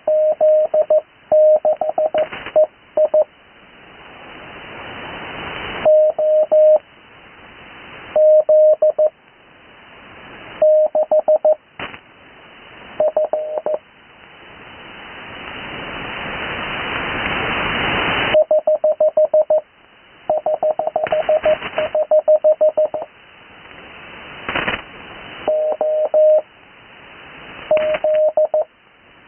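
Morse code (CW) call signs heard through an HF radio receiver on the 80 m band: a single mid-pitched tone keyed in quick dots and dashes. It comes in short groups separated by long pauses, with one longer unbroken run about two-thirds of the way through, and band hiss swells up in each pause between groups.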